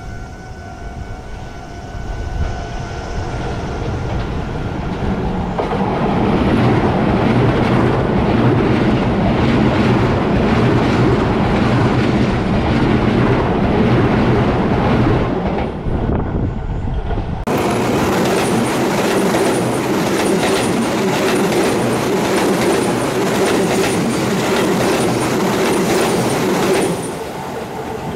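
Electric commuter train passing close by on a curve, its wheels clattering over the rail joints. The sound builds over the first few seconds and changes abruptly about two-thirds of the way through, then fades near the end.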